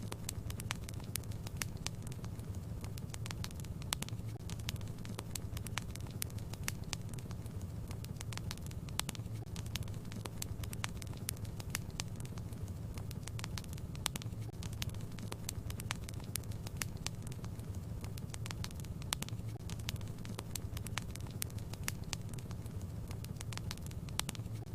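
Wood fire crackling in a fireplace: frequent irregular pops and snaps over a steady low rumble.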